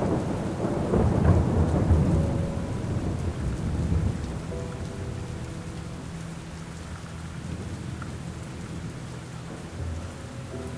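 Steady rainfall with a long rumble of thunder over the first few seconds, fading back to rain alone.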